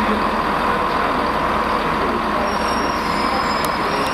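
Class 43 HST power car passing close by, its diesel engine running under power: a loud, steady drone with a strong high hum.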